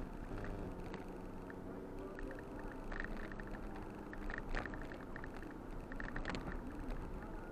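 Inside a Ford Bronco driving a dirt trail: steady engine and tyre rumble, with scattered clicking rattles throughout.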